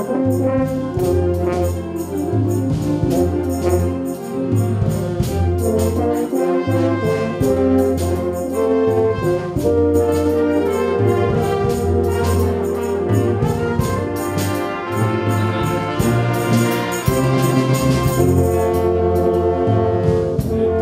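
Concert wind band, brass and clarinets, playing a passage together: sustained chords over a bass line that changes note about every second. The band grows louder about four seconds in and again near the end.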